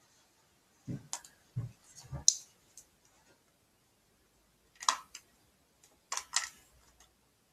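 Handling noise from a camcorder and its accessories: a few low knocks and sharp plastic clicks about a second in, then more clicks around five and six seconds in.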